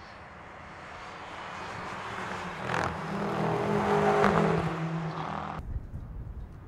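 BMW X6 M SUVs' twin-turbo V8 engines approaching and passing at speed on a racetrack, growing louder to a peak about four seconds in. The sound cuts off suddenly near the end, leaving a low rumble.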